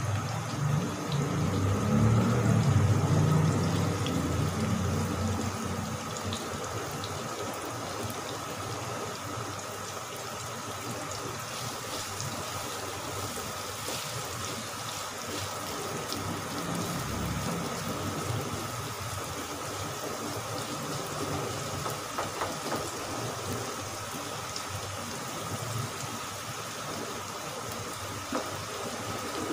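Sliced onions sizzling in hot oil in a wok on a high flame, a steady hiss, stirred with a spatula partway through. A low rumble is loudest in the first few seconds.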